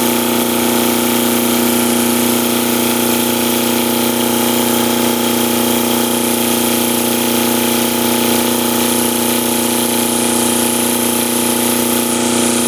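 Fischer Panda diesel generator running at a steady speed, a constant engine hum with many fixed overtones.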